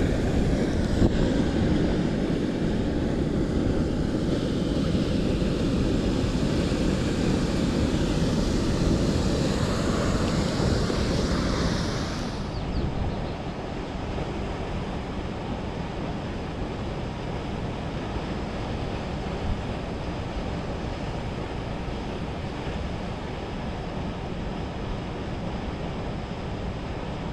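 Steady rush of a waterfall and fast river water, a constant noise with no separate events. About twelve seconds in it drops a little in level and loses its hiss.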